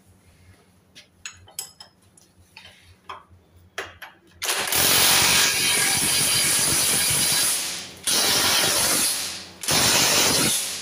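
Cordless electric ratchet running a bolt on a steering rack in three bursts, a long one of about three seconds followed by two shorter ones. Before it come a few light clicks.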